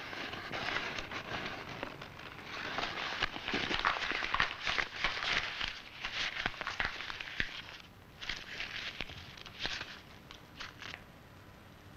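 Paper rustling and crinkling as hands bend a printed page and handle photographs, in crackly bursts that pause briefly about eight seconds in and stop near the end.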